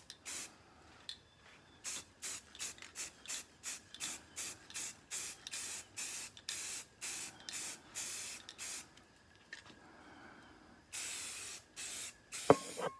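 Aerosol can of Rust-Oleum 2X flat grey spray paint sprayed in short bursts, about two a second, then after a pause in a few longer bursts. A sharp knock comes near the end.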